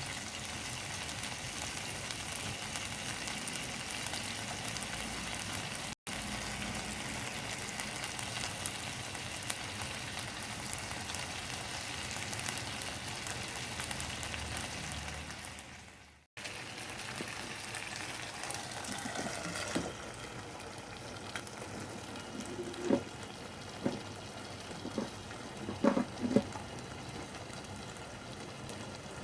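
Chicken frying in a pan: a steady sizzle, with a few short sharp knocks near the end.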